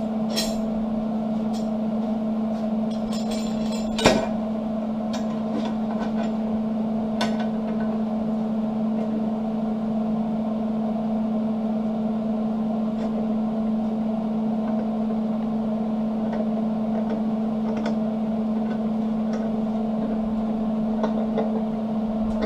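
Steel flat bar being clamped against a steel tank door: scattered metal clinks and knocks, the sharpest about four seconds in, over a steady hum.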